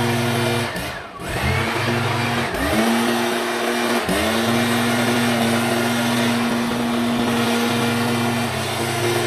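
STIHL backpack leaf blower's small engine running at high throttle. Its pitch drops sharply about a second in and climbs back, then dips and recovers twice more, near two and a half and four seconds in, as the throttle is let off and opened again.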